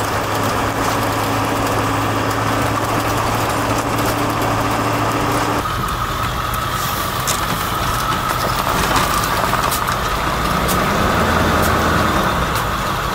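Ford E350 4x4 van's engine and tyre noise heard from inside the cab while driving on a dirt road: a steady low engine hum under a hiss of road noise. The engine note and road noise change a little under halfway through.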